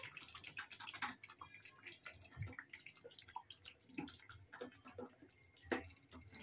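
Wooden spatula working through thick chicken chaap gravy in a metal pot, lifting a piece out: faint wet squelches and scattered light clicks against the pot.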